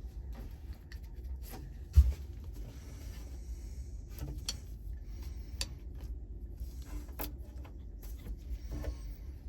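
Scattered clicks, taps and scrapes of hands working a stuck shifter bushing retainer on a manual-transmission shift lever, with one loud thump about two seconds in.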